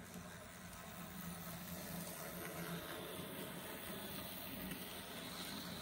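Z-scale AZL SD40-2 model locomotive running on its track: a steady whir from its small electric motor and wheels on the rails.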